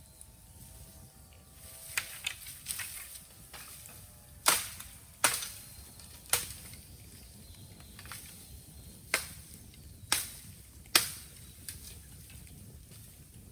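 Raw green bamboo burning in a bonfire, giving sharp irregular pops and cracks, about ten in all, with the loudest near the middle and again near the end. A faint wavering whistle runs through the first couple of seconds.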